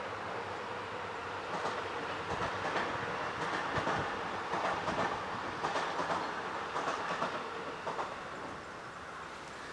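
JR Freight train rolling past, its wheels clacking over rail joints in small groups about once a second. The clacking dies away about eight seconds in, leaving a fainter steady noise.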